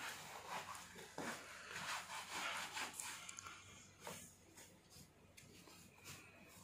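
Bed sheet rustling and swishing as hands pull it taut and tuck it under the mattress edge, busier for the first three seconds, then fainter.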